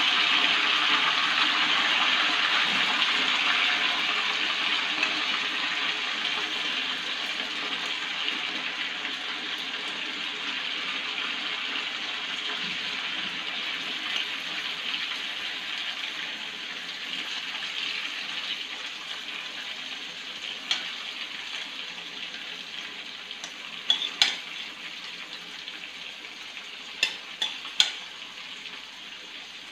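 Chicken pieces sizzling as they shallow-fry in hot oil in a nonstick pan, the sizzle fading slowly. A few sharp knocks come in the last third.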